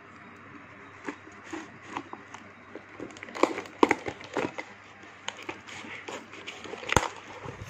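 A cardboard parcel being handled and pulled open by hand: scattered scrapes, rustles and taps of cardboard and plastic wrapping, with a few sharper cracks midway and one loud snap near the end.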